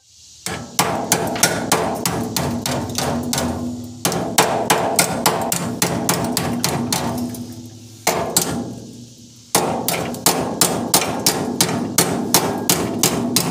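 Ball peen hammer tapping a clamped sheet-steel repair patch, about three blows a second in runs with a short break a little past the middle. The tapping forms the patch's curve to fit the A-pillar.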